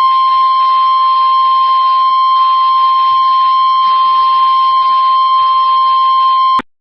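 NOAA Weather Radio warning alarm tone: a single loud, steady, unbroken high beep that cuts off abruptly near the end, the signal that a weather warning message follows.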